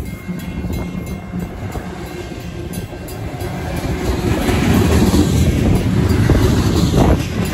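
Freight cars of a Union Pacific manifest train rolling past with their wheels rumbling and clattering over the rails, getting louder about halfway through. The crossing's WCH mechanical bell rings steadily behind it.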